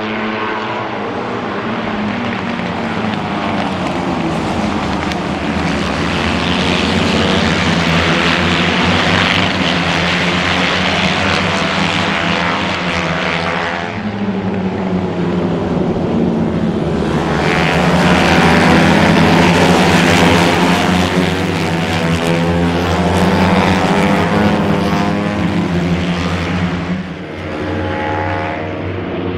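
A pack of racing motorcycles passing at speed, many engine notes overlapping and swelling and fading as groups go by, their pitch sliding as each bike passes. The sound changes abruptly about 14 seconds in.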